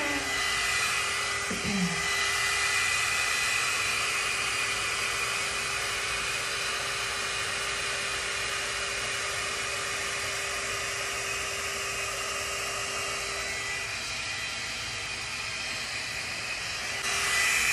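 GHD Duet 2-in-1 hot air styler running, its fan blowing a steady hiss of hot air with a faint steady whine as it is drawn down wet hair. It drops a little quieter about fourteen seconds in and picks up again near the end.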